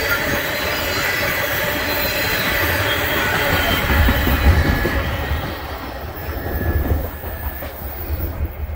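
Freight train tank cars rolling past on steel rails, wheels rumbling with a thin high squeal. The last car passes about halfway through, and the sound then fades as the train moves away.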